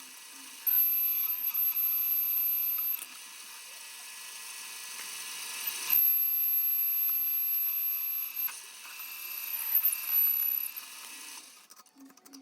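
Metalworking machine noise: a steady high-pitched whine over mechanical hiss, changing abruptly every few seconds.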